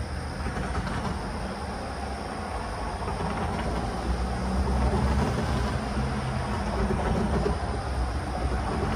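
Steady low rumble of vehicle engines and traffic, growing a little louder about four seconds in.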